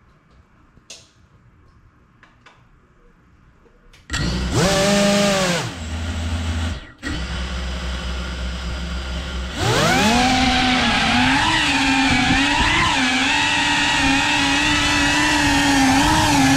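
Cinewhoop FPV quadcopter's brushless motors and propellers. After a few seconds of quiet with faint clicks, they spin up sharply about four seconds in with a rising whine, then drop to a lower steady hum that cuts out for an instant. Around ten seconds in they rise again to a loud, steady high whine that wavers in pitch with the throttle.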